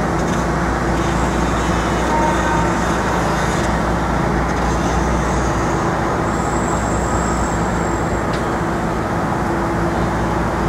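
Steady city street traffic noise, with the even drone of a vehicle engine running.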